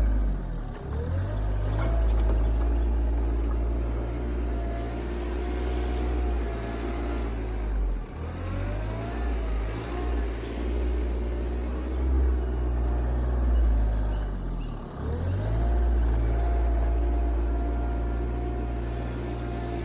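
RK24 compact tractor engine running steadily. Its speed dips and then climbs back up three times: about a second in, around eight seconds in, and around fifteen seconds in.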